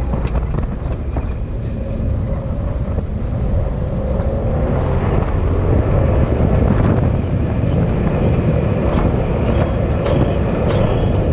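Side-by-side UTV engine running under load while driving across sand dunes, the engine note climbing and growing louder about halfway through as it revs up.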